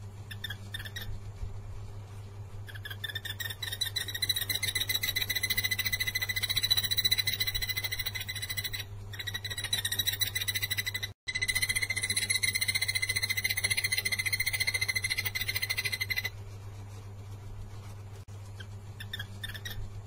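Takur tenggeret (yellow-eared barbet) calling: a long, fast run of rapidly repeated notes that starts about three seconds in, breaks off briefly twice, and stops about three-quarters of the way through. A steady low hum runs underneath.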